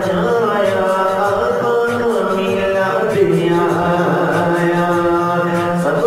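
Devotional naat singing: a voice holding long notes and sliding between them, over a steady low drone and a soft regular low pulse.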